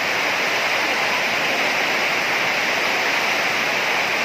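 Steady, loud hiss of heavy rainfall.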